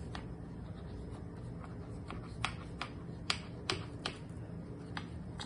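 Scattered light, sharp clicks and taps, about a dozen at uneven spacing, as a knife cuts through rolled phyllo baklava and touches the glass baking dish. A faint steady hum lies underneath.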